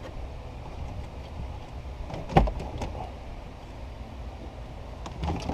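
Plastic dashboard being shifted and handled after being unclipped: one sharp knock about two and a half seconds in, with a few lighter plastic clicks and rattles, over a low steady hum.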